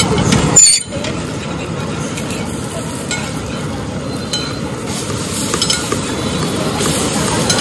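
Uttapams frying in butter on a large flat iron griddle, a steady sizzle. A metal spatula scrapes and taps against the griddle a few times as they are worked and turned over.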